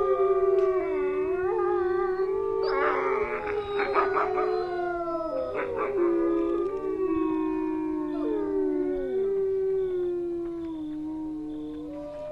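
Several wolves howling together: long overlapping howls that hold or slide slowly in pitch, with a few shorter, rougher calls mixed in about three and six seconds in.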